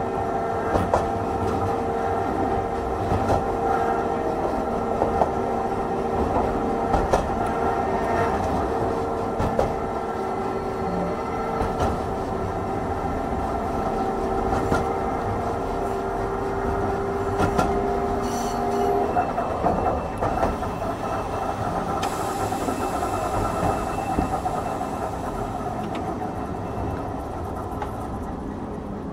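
Hankai Tramway Type 351 tram running, its nose-suspended traction motors whining in several steady tones over the rumble of the wheels, with clicks from the rail joints. The motor whine stops about two-thirds of the way through and the tram runs on, gradually getting quieter.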